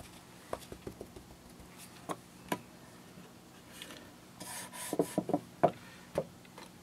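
Light taps and clicks of a foam ink blending tool and plastic ink pad cases on a craft table, with a short rub of the blending foam across an ink pad about four and a half seconds in, followed by a quick run of clicks.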